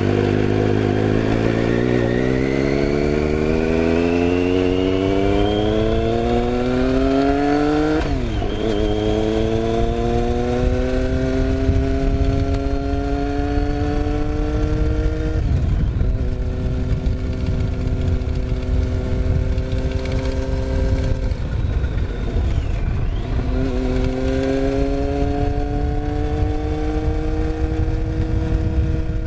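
Triumph Street Triple 675's inline three-cylinder engine accelerating through the gears: the pitch climbs, then drops sharply at upshifts about 8 and 15 seconds in. It holds steady, eases off around 21 seconds, and pulls again from about 23 seconds.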